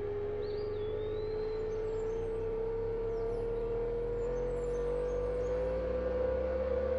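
A sustained electronic drone, one strong tone over lower ones, slowly rising in pitch throughout. Faint bird chirps sound high above it.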